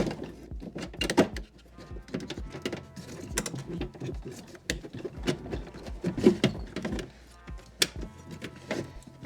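Irregular plastic and metal clicks, knocks and rattles of a Mercedes W220 door lock assembly being worked and jostled inside the door cavity, catching on a wiring harness.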